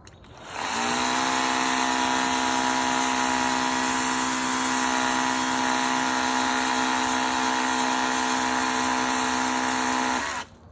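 Ryobi 18V EZ Clean Power Cleaner's electric pump motor running on its high setting and spraying soap through the foam cannon attachment: a steady whine with the hiss of the spray. It spins up with a rising pitch about half a second in and cuts off near the end.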